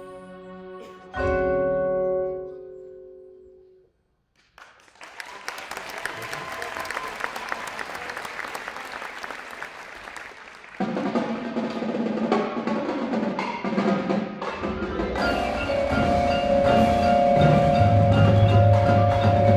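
Indoor percussion ensemble performing: a held chord swells about a second in and fades away to a brief silence near four seconds, followed by a busy, hissing percussive texture. About eleven seconds in the full ensemble comes in louder, with marimbas, drums and a deep bass, growing louder with held tones near the end.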